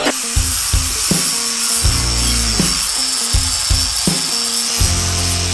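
Angle grinder with a flap disc grinding a plasma-cut metal plate clean, a steady high whine and hiss, under background music with a steady beat.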